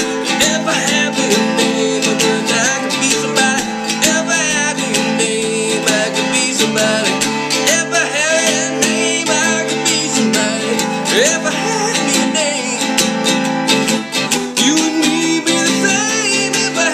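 A man singing to his own strummed acoustic guitar, a steady run of chords under the vocal line.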